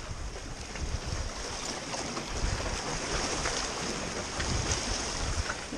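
Waves washing and breaking over jetty rocks, with wind buffeting the microphone.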